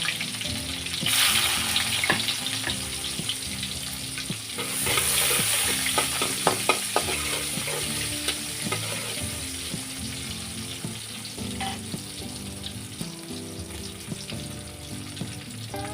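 Onions sizzling as they go into hot oil in a pan, the sizzle surging about a second in and again about five seconds in, then easing. A few clicks of a spatula stirring against the pan come partway through.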